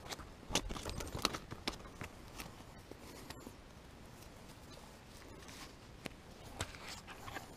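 Light, scattered crunches and rustles of a person moving on a gravel shore. They are busiest in the first couple of seconds, thin out, and pick up again near the end.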